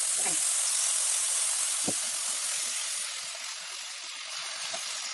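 Bok choy and thin-sliced beef sizzling in hot oil in a wok as they are stir-fried. The hiss is steady and eases slightly about three seconds in, with one brief knock about two seconds in.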